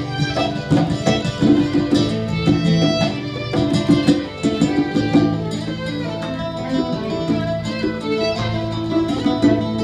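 Live acoustic music: nylon-string guitar and violin playing together, with quick strummed chords for the first few seconds and then longer held notes.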